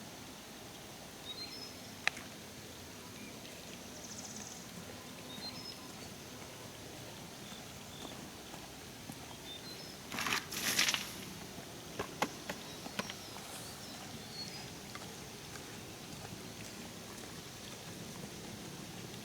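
Quiet rural outdoor ambience with faint short high chirps, a few sharp clicks, and a brief rustle about ten seconds in.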